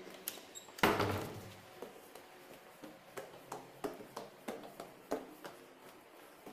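A loud thud about a second in, then footsteps going down hard stairs, short sharp taps at about two a second.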